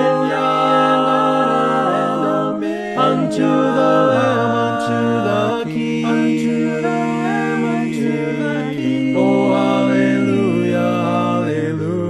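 Mixed voices singing a hymn a cappella in four-part harmony, with no instruments.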